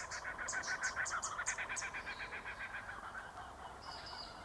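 A rapid, evenly pulsing animal call, strongest in the first couple of seconds and then fading, with a short high whistled note near the end.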